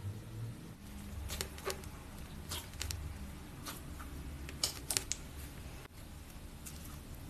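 Slime being handled by hand, giving scattered small clicks and pops over a low steady hum.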